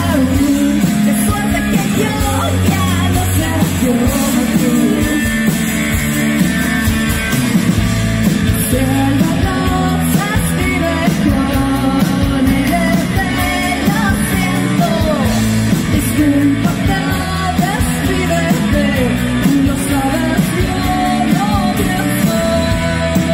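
Live rock band playing, electric guitar, bass guitar and drum kit, loud and steady, with a voice singing over it.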